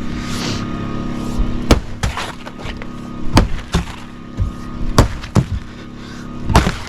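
Wood being struck and broken up during demolition: six sharp knocks and cracks, some in quick pairs, over a steady low hum.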